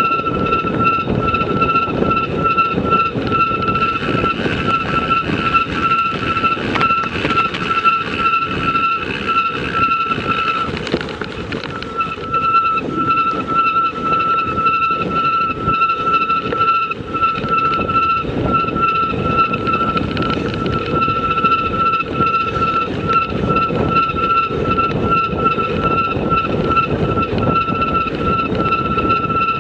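Continuous rumbling ride noise with a steady high-pitched whine over it that drops out for about a second around eleven seconds in.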